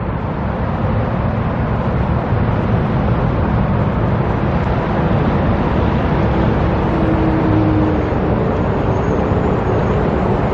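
Steady roadway traffic noise, a continuous rush of passing cars.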